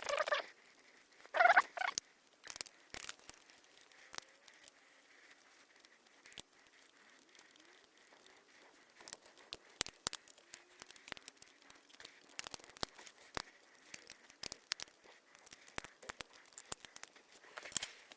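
Hand work on a Kärcher K-series pressure washer: scattered small clicks and taps of parts being handled and fitted, with two louder handling sounds near the start.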